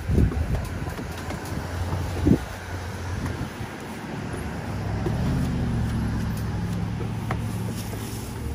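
Road traffic with a vehicle engine running, its low hum strongest from about five seconds in, and two short thuds, one at the start and one about two seconds in.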